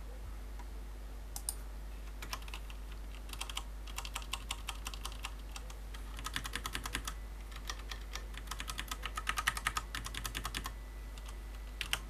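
Typing on a WASD Code v2 mechanical keyboard with Cherry MX Clear switches, which are tactile but not clicky: quick runs of keystrokes in several bursts with short pauses between them. The typing starts about a second and a half in and stops a little before the end, with one last keystroke near the end.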